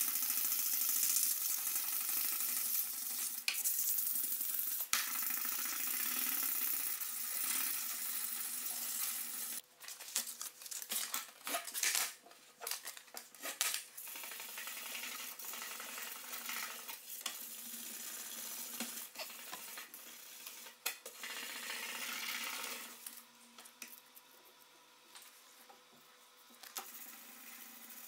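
Sandpaper rubbed by hand back and forth along a steel machete blade, a steady scratchy hiss. After about ten seconds it breaks into shorter separate strokes, and it grows quieter near the end.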